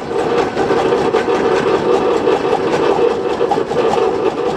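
Drill press running with a large drill bit boring through a steel plate, a steady loud drone.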